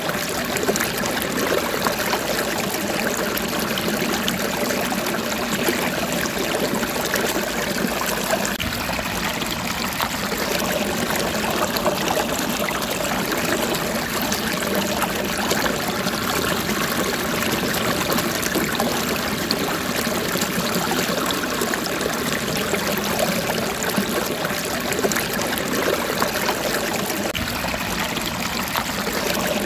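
Steady sound of running water, a stream trickling without pause.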